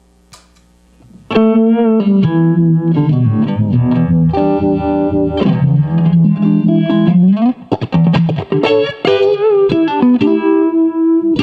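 Electric guitar played through a Sweet Sound Mojo Vibe pedal, a Uni-Vibe-style chorus/vibrato effect, giving notes and chords a wavering, pulsing sound. The playing starts after a brief pause about a second in, with a stretch of short choppy chord strokes near the middle.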